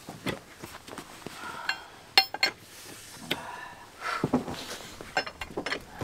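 Metal hand tools and parts clinking and knocking while working on a 4x4's front wheel hub and axle shaft, with a sharp ringing metal clink about two seconds in.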